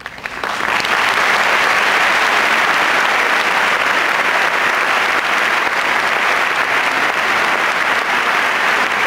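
Audience applause that breaks out suddenly, swells within about a second and then goes on as steady, dense clapping.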